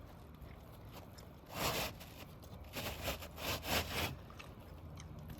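Short scraping sounds of asphalt roof shingles being worked and pried at: one about a second and a half in, then several close together a little after.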